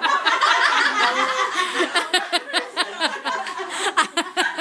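A group of women laughing together, with overlapping chatter.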